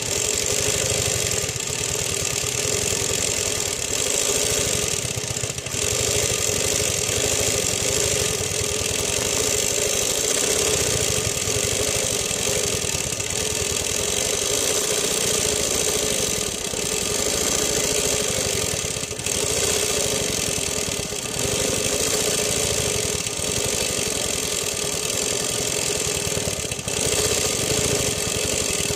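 Quilting machine running steadily as its needle stitches free-motion through a quilt, a fast, even mechanical chatter with a few brief dips.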